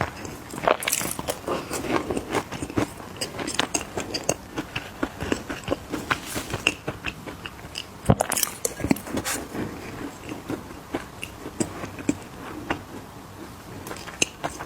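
Mini cookies being bitten and chewed close to the microphone: a dense, irregular run of short crunches and crackles.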